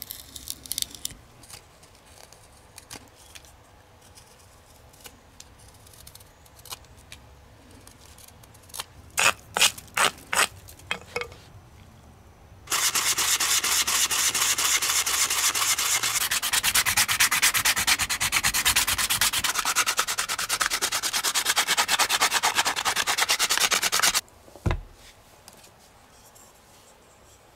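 A knife scraping and shaving inside a wooden spoon's bowl in scattered short strokes, then about eleven seconds of loud, fast, even rubbing as the spoon is sanded by hand, which stops suddenly. A single thump just after.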